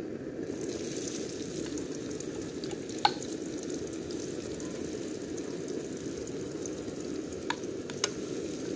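Chopped onions frying in hot oil in a pan, a steady sizzle that grows hissier about half a second in. A few sharp knocks of the wooden board and metal spatula against the pan.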